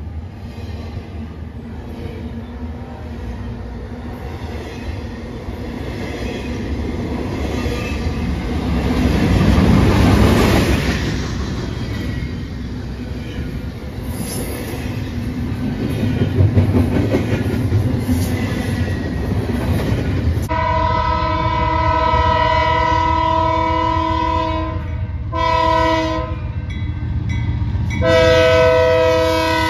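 Double-stack intermodal freight train rolling past, steel wheels clacking on the rails over a deep rumble that swells about a third of the way in. Then a BNSF freight locomotive's multi-tone air horn sounds a long blast, a short one, and another long blast near the end.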